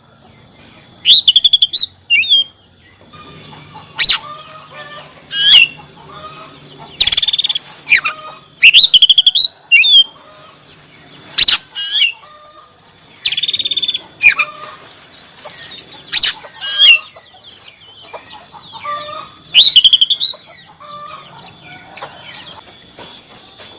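Oriental magpie-robin (kacer) calling loudly in separate bursts every one to three seconds: sharp whistled chirps with quick pitch sweeps, and twice a harsh, rasping buzz; softer twittering near the end.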